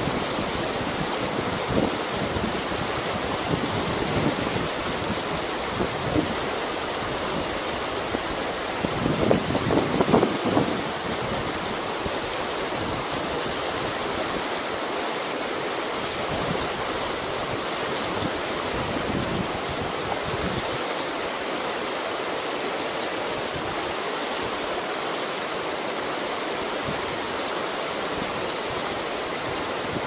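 Mountain river rapids rushing over boulders: a steady, even rush of water, with a brief louder stretch about nine seconds in.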